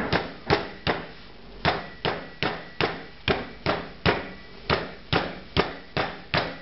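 Flat round metal meat pounder striking rabbit saddle through plastic film on a wooden cutting board, pounding it out into an even paillard. Regular thuds a little over two a second, with a brief pause about a second in.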